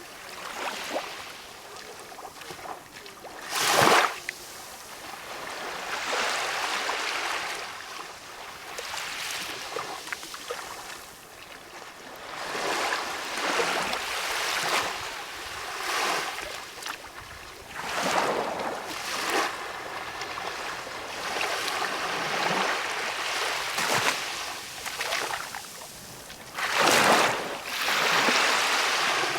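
Small waves of a calm sea washing in, the sound swelling and falling back every couple of seconds. Louder splashes come about four seconds in and again near the end.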